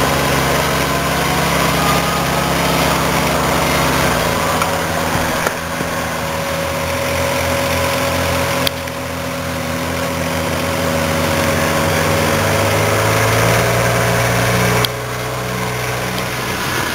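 Utility side-by-side engines running steadily as the vehicles plough through a flooded mud hole, water churning around them. The engine note changes abruptly three times, about four, nine and fifteen seconds in.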